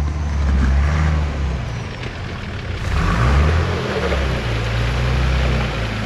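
Nissan GQ Patrol 4WD engine running under load as it crawls up rock steps, its pitch rising and falling as the driver works the throttle.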